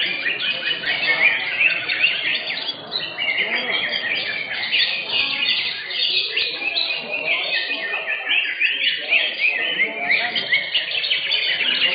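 Several caged cucak hijau (green leafbirds) singing at once, a dense unbroken chorus of quick chirps, whistles and trills, with people's voices murmuring underneath.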